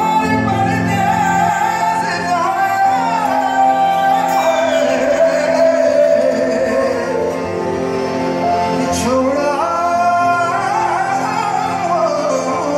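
A male singer singing live over amplified band accompaniment, his voice sliding down in a long ornamented glide around four seconds in and climbing again around nine seconds in. The keyboards and guitar hold steady notes underneath.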